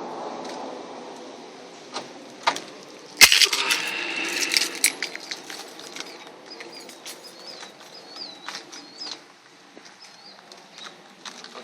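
A single sharp bang about three seconds in, followed by a second or two of clattering, then a bird chirping a quick run of short repeated notes.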